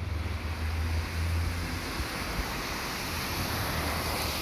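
Wind buffeting the microphone, a low rumble in the first half, under a steady outdoor hiss that grows stronger toward the end.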